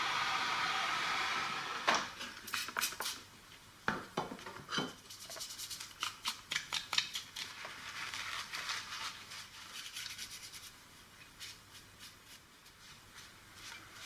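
A steady hiss for about the first two seconds that then cuts off, followed by a run of small clicks, taps and scrapes from hands working on the walkie-talkies' circuit boards and plastic parts.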